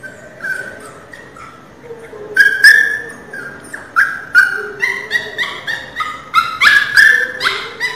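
Pinscher puppy crying: faint high-pitched whimpers at first, then about two and a half seconds in, loud, short, high yelping cries, two or three a second.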